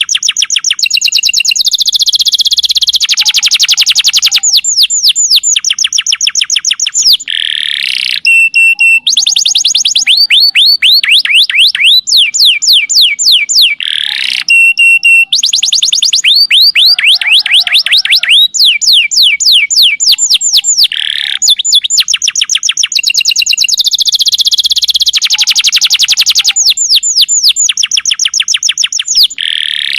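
Domestic canary singing a long, loud song of fast trills: runs of quick downward-sweeping notes repeated many times a second, changing from one trill to the next with brief breaks.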